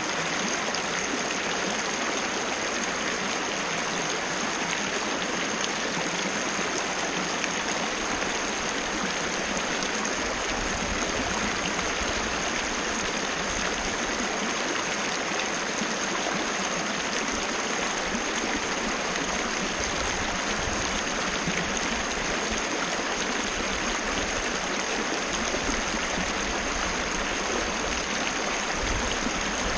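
Small waterfall rushing steadily, with a thin, steady high-pitched tone running under the water noise.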